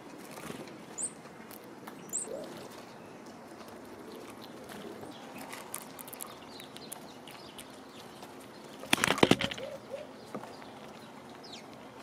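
Black squirrel feeding on a wooden feeder platform close to the microphone: scattered clicks and scrabbling, with a loud burst of clattering about nine seconds in. A few short, high bird chirps sound in the first couple of seconds.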